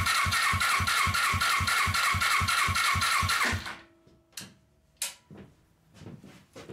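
Suzuki GS500 parallel-twin engine being cranked over by its starter for a compression test on the right cylinder, with an even rhythm of about five compression strokes a second. It stops abruptly about three and a half seconds in, followed by a few light clicks. The gauge reads about 90 psi, which the owner calls bad compression, the same cold as warmed up.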